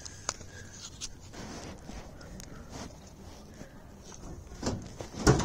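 Light scattered clicks and scraping from a handheld phone being carried while walking, then one loud thump near the end.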